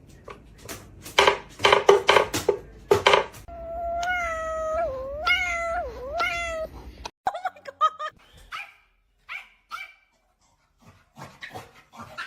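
Pet animal calls: a quick run of loud, sharp barks or yelps, then one long cry of about three seconds that wavers up and down in pitch. After a sudden break about seven seconds in come short high squeaks and clicks.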